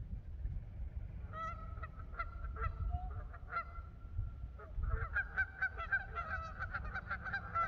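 Geese honking: short repeated calls that start about a second in and grow busier and more overlapping from about five seconds in, over a low rumble.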